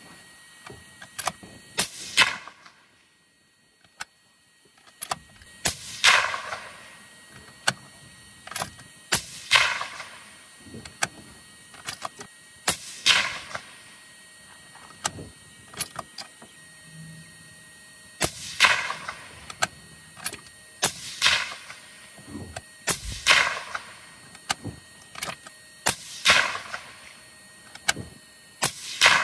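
A bolt-action 25 Creedmoor rifle, a Horizon Firearms Vandal Prime, fired about nine times a few seconds apart. Each shot is a sharp crack followed by a rolling echo, with smaller clicks and knocks from handling the rifle between shots.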